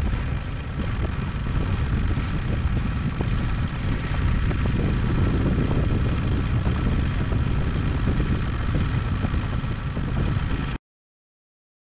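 70 hp Mercury outboard running steadily as the boat moves across the lake, mixed with wind and water noise; the sound cuts off suddenly about a second before the end.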